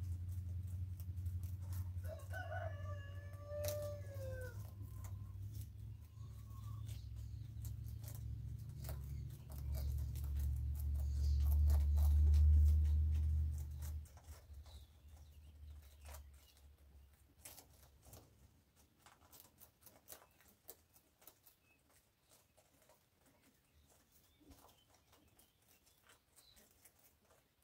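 A rooster crows once, a falling call about two seconds in, over a low rumble that grows louder and then cuts out about halfway through. Throughout, quick faint clicks of young rabbits crunching dry food.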